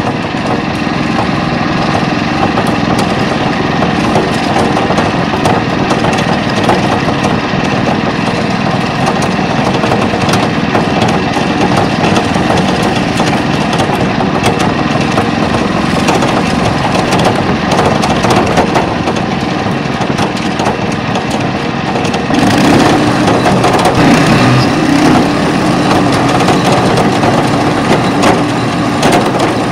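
Pasquali SB30 two-wheel tractor's engine running steadily while the tractor drives along with a trailer, heard close up from onboard. About three-quarters of the way through it grows a little louder.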